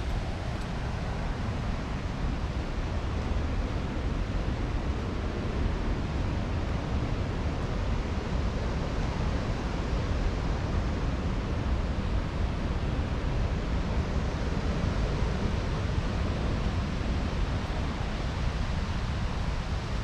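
The Kettle River running high in flood: a steady, deep rush of fast water with no breaks.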